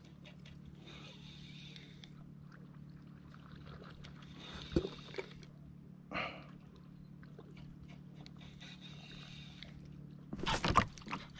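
Spinning reel cranked in short spells while a jig is worked from a kayak, with a few light clicks and knocks. A louder cluster of knocks and rattles comes near the end.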